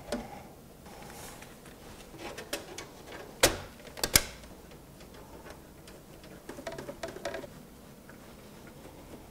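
Scattered small clicks and knocks of a motherboard being handled and set into a HYTE Y40 PC case. There are two sharper knocks about three and a half and four seconds in, and a brief light rattle later on.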